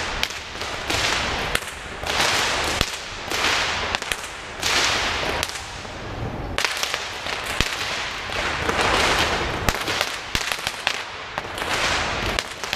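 A whip cracked over and over in fast runs of sharp cracks, with short gaps between the runs.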